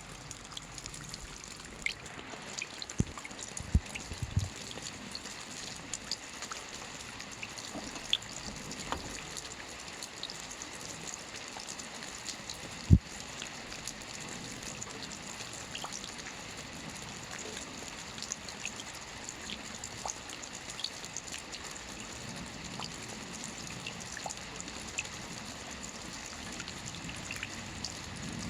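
Steady rain falling, an even hiss dotted with many small individual drop ticks. A few louder knocks stand out, three about three to four seconds in and the loudest about halfway through.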